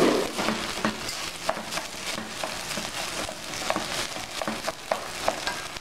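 Washed rice frying with onion and garlic in a pot, sizzling with scattered crackles while a plastic rice paddle stirs and scrapes through it.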